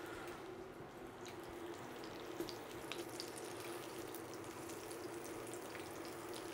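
Halloumi slices sizzling in oil in a nonstick frying pan: a faint, steady hiss with small scattered crackles. A low steady hum sits underneath.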